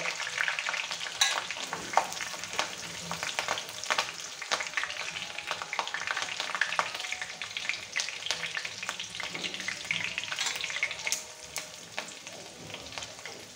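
Curry leaves, chopped ginger and green chilli sizzling in hot oil and ghee in a metal kadai, a steady crackle full of small pops, with a wooden spatula stirring through it. The crackle eases a little near the end.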